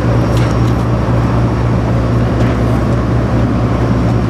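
Charter fishing boat's engine running steadily underway: a constant low drone with a strong hum just above 100 Hz.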